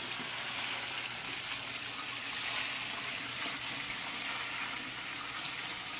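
Steady rushing of moving water from a backyard pool and spa.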